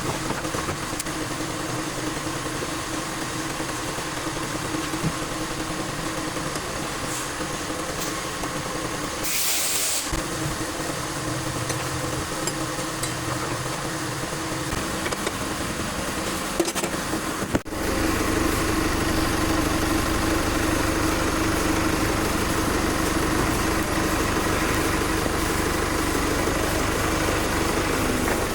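Vehicle engine idling steadily, with a short hiss about ten seconds in; just past halfway the sound briefly drops out and comes back louder, with more low rumble.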